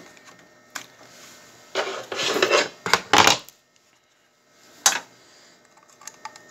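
Hard objects being handled: a few sharp clicks and knocks, with two short bursts of scraping clatter about two and three seconds in.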